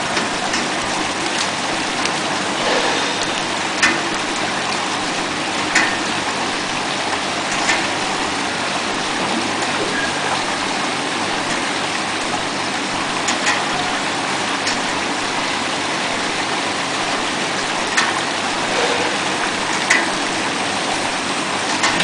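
Water rushing and splashing steadily inside a YQX-650A vegetable washing machine as it runs, with a few short knocks every couple of seconds.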